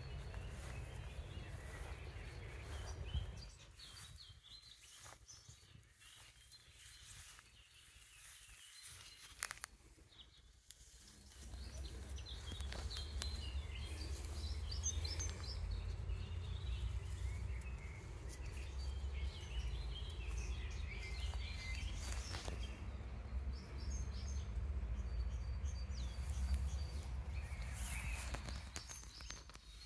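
Songbirds chirping and singing outdoors. A low rumble on the microphone drops away about three seconds in and returns about eleven seconds in.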